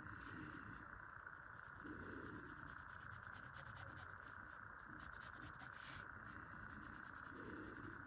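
Faint scratching and rubbing of a drawing tool on sketchbook paper, quick repeated strokes as the drawing is filled in, over a steady low hiss.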